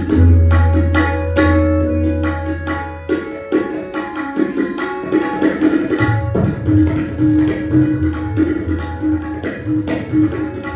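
Tabla solo: a dense run of quick strokes on the drums, opening with a deep, sustained bass-drum (bayan) tone that lasts about three seconds, with more deep bayan strokes returning after about six seconds. Underneath, a harmonium holds steady tones as a repeating accompaniment melody (lehra).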